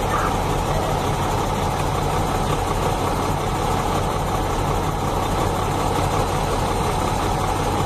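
Heavy machine's diesel engine idling steadily with a low, even hum.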